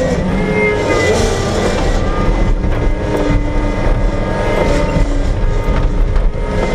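Tractor engine running steadily under way, with thin whining tones over the low rumble, heard from inside the cab.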